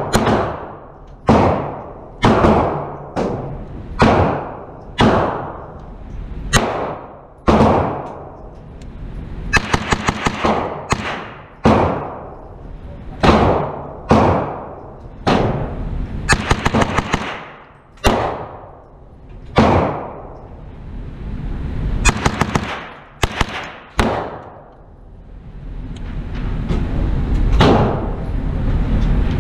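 Repeated gunshots in an indoor shooting range, each ringing off the walls and dying away, at about one a second, with several quick strings of rapid shots in between. Near the end a low rumble builds.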